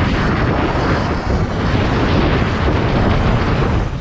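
Wind buffeting the action camera's microphone on an electric dirtbike moving at speed along a road: a loud, steady rushing rumble.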